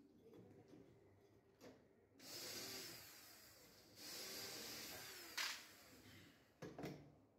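Cordless drill/driver running in two short bursts of about a second each, with a click as the second stops. A few light knocks follow near the end.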